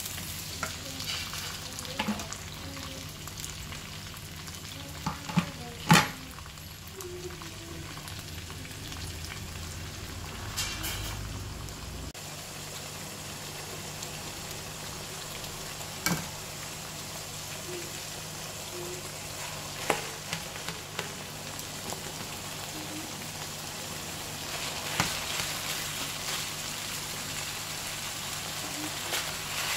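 Mixed vegetables sizzling and frying in a frying pan as they are stirred with a spatula. A few sharp knocks of the spatula against the pan stand out over the steady hiss.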